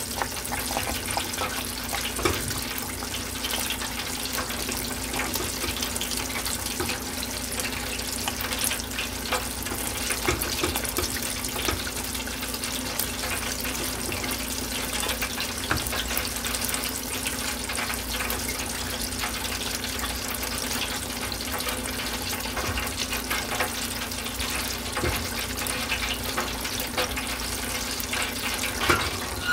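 A spatula stirring thick grits in a stainless-steel saucepan, giving small scrapes and clicks over a steady rushing hiss with a low hum underneath.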